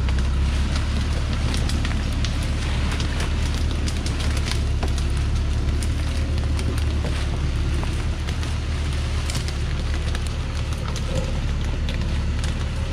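A Thaco Foland truck's diesel engine running with a steady low rumble as the truck reverses slowly, while cut acacia branches and leaves crackle and snap under its tyres throughout.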